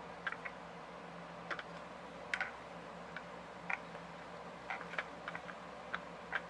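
Light clicks and taps, about a dozen at uneven intervals, from a die-cast toy car and its plastic packaging being handled, over a faint steady low hum.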